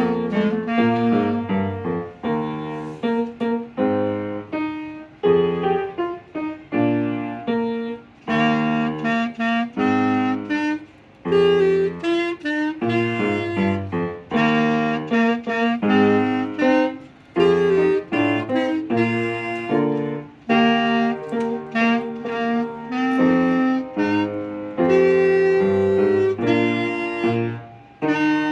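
Music: a wind instrument playing a melody in short phrases of separate notes, with an accompaniment underneath.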